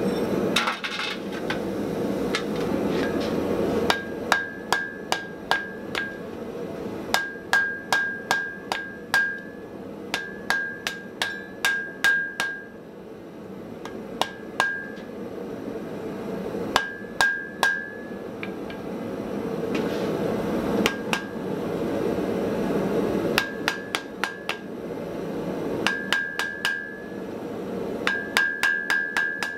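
Hammer blows on a red-hot Damascus steel sword blade on an anvil, coming in short runs of several quick strikes with pauses between, each blow ringing off the anvil. A steady rushing noise runs underneath.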